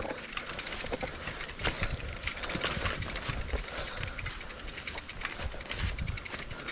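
Mountain bike rattling and crunching over a gravelly, muddy track, its mud-clogged tyres and frame giving irregular clicks and knocks.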